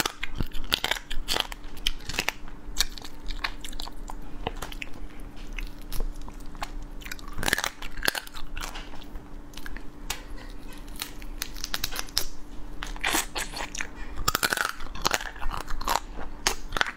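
A person biting and chewing cooked crab up close, the shell crunching and cracking in many irregular crisp clicks, over a faint steady hum.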